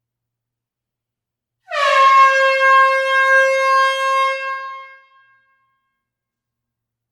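Air horn sounding one long blast of about three and a half seconds, starting about a second and a half in. Its pitch dips slightly at the onset, then holds steady before fading out.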